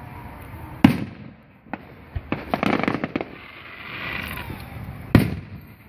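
Fireworks going off: a sharp boom about a second in, a quick run of crackling pops in the middle, and another sharp boom near the end.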